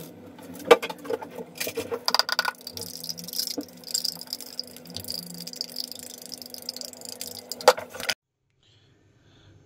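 Kitchen utensils and dishes clinking and rattling in irregular handling noises, with a faint steady high tone underneath. It all cuts off abruptly about eight seconds in, leaving near silence.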